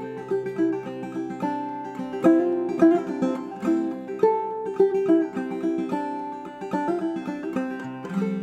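Clawhammer banjo playing a melody in a steady stream of plucked notes, with a low note held underneath.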